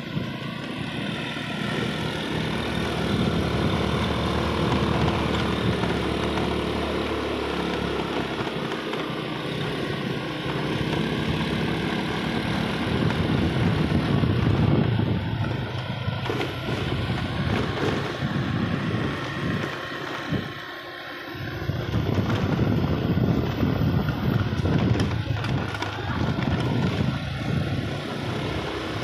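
Motor scooter engine running steadily while riding along a paved path, with a brief drop in loudness about two-thirds of the way through.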